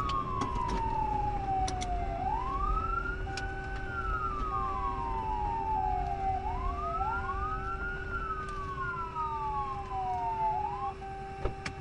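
Police car siren in a slow wail, rising and falling about every four seconds, over the patrol car's road and engine noise. The siren cuts off near the end.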